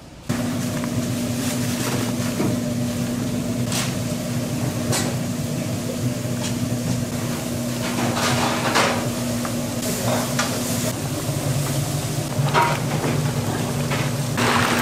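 Food frying and sizzling in a pan, with utensils stirring and clattering now and then, over a steady low hum.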